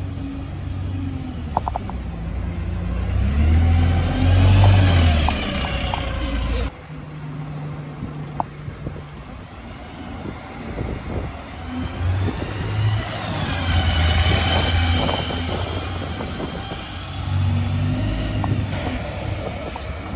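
Alexander Dennis Enviro200 single-deck bus driving past with its engine note rising as it accelerates, loudest about five seconds in. After a sudden cut, the bus accelerates away again with a rising whine over street traffic.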